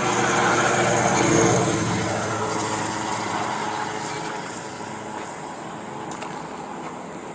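A road vehicle driving past, loudest about a second and a half in, then fading away.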